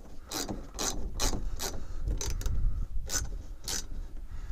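Hand ratchet wrench clicking through a series of short strokes as it turns a bolt, here one of the cab-door hinge bolts.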